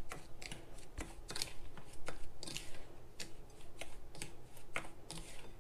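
Dry sugar, cinnamon and flour being stirred in a bowl: a utensil scrapes through the mix and clicks against the bowl, irregularly, about two or three times a second.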